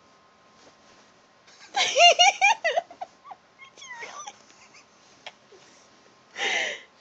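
A person giggling: a quick run of about six high laughs, then one short laugh near the end, over faint rustling of bedding.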